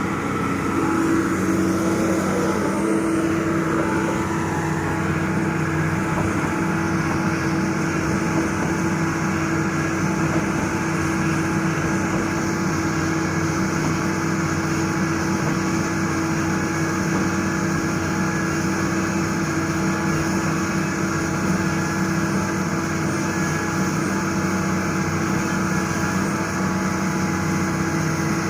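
Diesel engine of a heavy earthmoving machine running steadily, with a constant humming tone over the engine noise.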